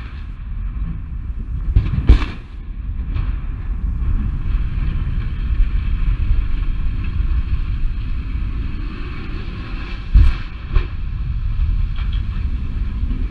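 Explosive felling of a 400-foot steel chimney stack: a sharp bang about two seconds in, a steady low rumble with hiss as the stack topples, then heavy crashing impacts about ten seconds in as it strikes the ground.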